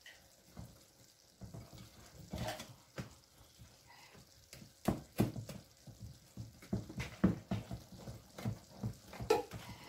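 Hand wire whisk stirring thick cake batter in a glass bowl, with irregular clicks and taps of the wires against the bowl, coming more often from about halfway through.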